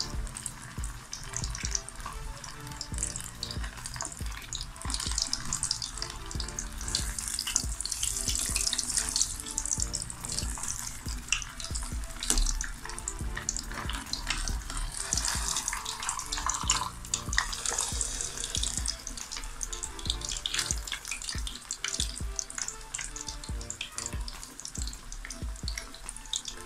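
Besan-battered surmai (kingfish) pieces deep-frying in oil in an aluminium pan on low heat: a steady crackling sizzle.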